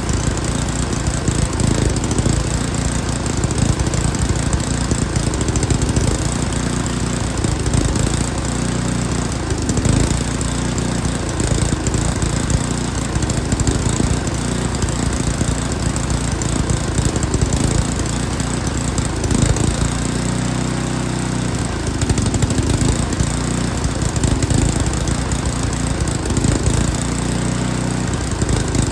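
Yard King snowblower engine running steadily while its carburetor mixture screws are adjusted, its note shifting about twenty seconds in and again near the end as the fuel mixture is changed.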